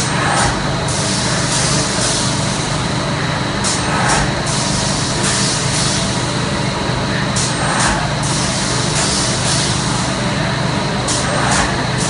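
Seedling tray moulding machine running: a steady mechanical hum with several short hisses at irregular intervals.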